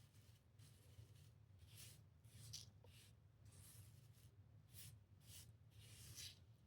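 Faint, soft swishes of a small rhinestone brush sweeping rhinestones across a template, in irregular strokes about one to two a second, over a low steady hum.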